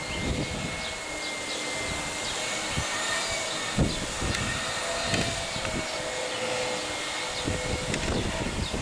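Embraer ERJ145 regional jet's Rolls-Royce AE 3007 turbofan engines whining steadily on approach, with irregular gusts of wind buffeting the microphone.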